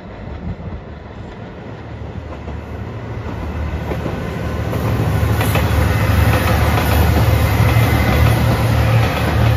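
Diesel express train approaching and passing close by, its low engine rumble growing steadily louder, with wheels clicking over the rail joints about halfway through.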